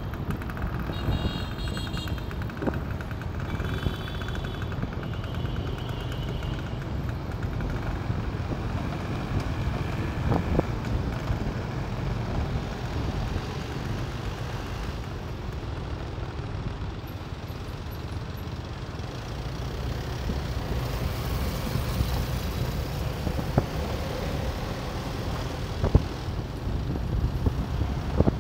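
Motorbike running along a city street, its engine and the road noise a steady drone throughout. A few short high tones sound in the first six seconds or so.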